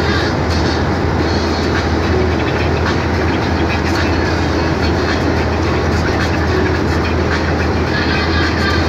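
Cab noise of a Mercedes-Benz Atego diesel box truck cruising at steady speed: a constant low engine drone mixed with tyre and road noise.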